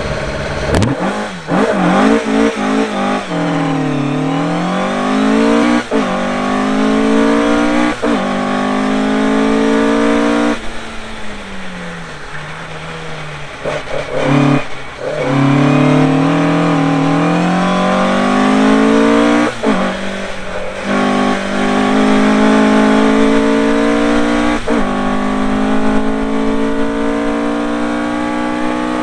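Race-prepared car's engine, heard from a bumper-mounted camera, accelerating hard through the gears: the pitch climbs, breaks sharply at each upshift and climbs again, several times over. Twice the pitch falls away as the car slows for corners, about three seconds in and again around the middle.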